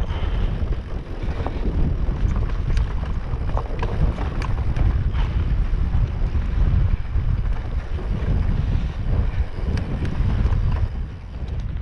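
Wind rumbling on the microphone as an e-mountain bike rolls over a rough, stony path, with scattered sharp clicks and rattles from the tyres hitting stones and the bike's parts jolting.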